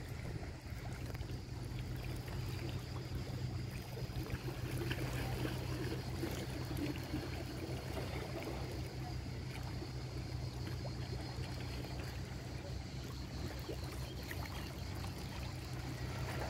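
Sea water splashing and trickling over a steady low hum.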